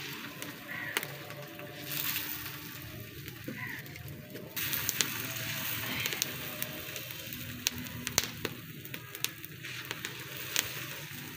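Pearl-millet roti cooking on a hot iron tawa over a wood fire: a steady sizzle that gets louder about four seconds in, with scattered sharp crackles and pops.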